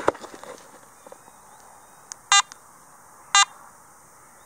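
Garrett AT Max metal detector giving two short electronic beeps of the same pitch, about a second apart: the detector switching on and showing it has power. A few light handling clicks come right at the start.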